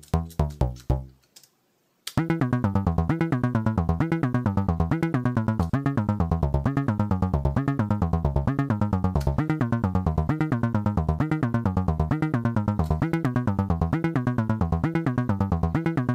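Teenage Engineering OP-1 synthesizer on its Dr. Wave engine playing bass: a few single low notes from its keys, then from about two seconds in a rapid, evenly spaced run of short bass notes in a repeating pattern, driven by the endless sequencer.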